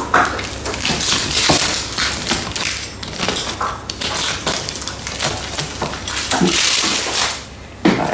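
Pizza wheel cutter rolling through the crust of a freshly baked focaccia: a rough, crackling crunch of crisp crust, with a short lull shortly before the end.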